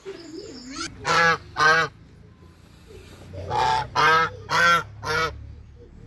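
Chinese geese honking: six loud, short honks, two close together about a second in, then four in quick succession from about three and a half seconds in.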